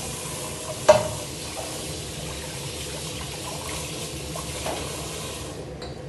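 Water running steadily from a kitchen tap, shut off abruptly near the end, with one sharp clack about a second in.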